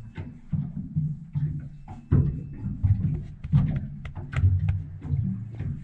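Background music with a percussive beat of drums and clicky, wood-block-like hits.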